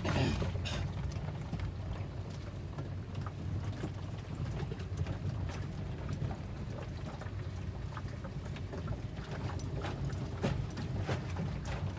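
Car driving, heard from inside the cabin: a steady low rumble of engine and road, with frequent small knocks and rattles and a brief louder rattle at the start.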